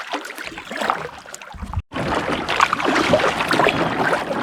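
Water dripping and sloshing with light knocks and crackles as a canoe is paddled through thick vegetation. There is a short break a little under two seconds in, then a denser, louder crackling noise.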